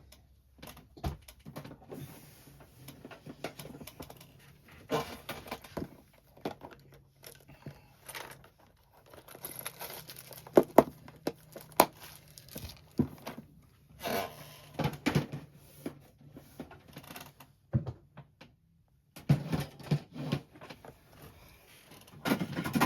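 Someone rummaging through craft supplies to fetch an item: scattered knocks, clicks and rustling of packaging, with a couple of sharper knocks about ten to twelve seconds in.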